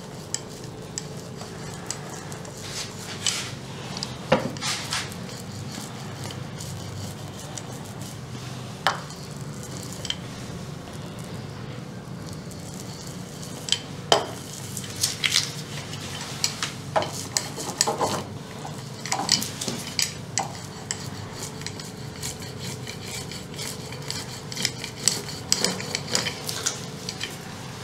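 Metal ribbed fiberglass consolidation roller rolled back and forth over resin-wet fiberglass mat, pressing it down to wet it out and work out air. The roller makes light metallic clicks and clinks, more frequent in the second half, over a steady low hum.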